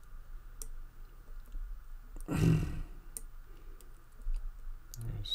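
Dimple pick working inside a dimple-lock cylinder under tension: faint, scattered small metal clicks as the pick lifts and tests the pins. A short, louder rush of noise comes about two and a half seconds in.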